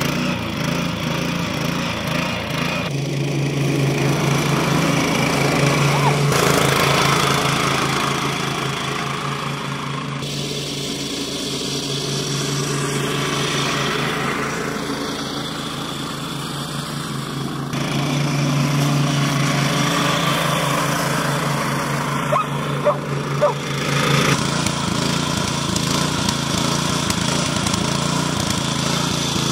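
Troy-Bilt Flex walk-behind mower's engine running steadily, with sudden small changes in its tone every few seconds.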